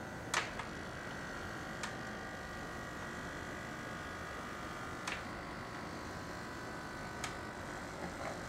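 Hobby servo motors of a robotic arm whining steadily as the arm reaches out and draws back, with a handful of sharp mechanical clicks scattered through.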